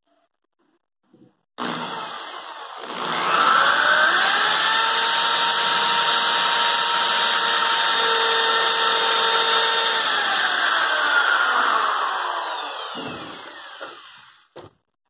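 Corded electric drill boring a 2.5 mm pilot hole into the MDF panel of a cabinet box. The motor winds up to full speed in the first few seconds, runs steadily for several seconds, then winds down with a falling pitch to a stop near the end. A short knock comes just before the end.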